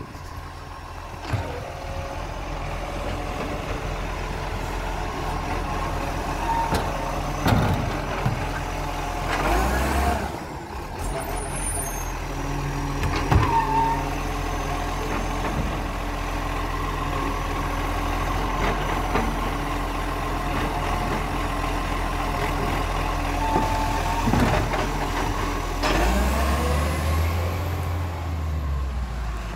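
Side-loading garbage truck collecting wheelie bins: the diesel engine runs steadily while the hydraulic arm lifts and tips bins, with several clunks and bangs as bins are emptied. Near the end the engine note swells as the truck moves off.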